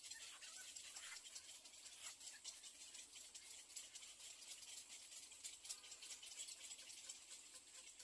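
Near silence: a faint high hiss with scattered soft ticks.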